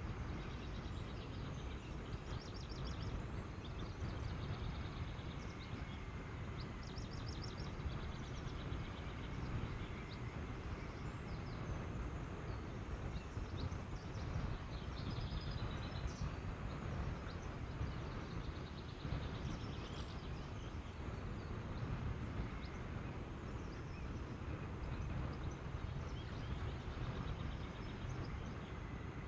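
Steady low rumble of wind and road noise on the microphone of a camera moving along a country lane. Small birds chirp in quick repeated notes now and then behind it, clearest near the start, about seven seconds in and about fifteen seconds in.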